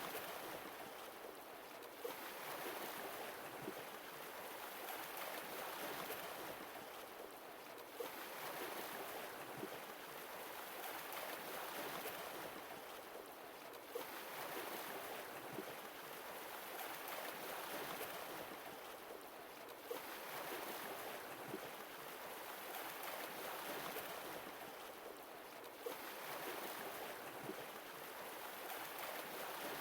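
Sea waves washing in, swelling and falling back in surges about every six seconds.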